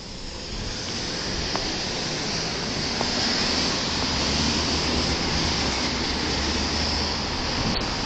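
Car traffic passing close by, a steady rush of engine and tyre noise that builds over the first second.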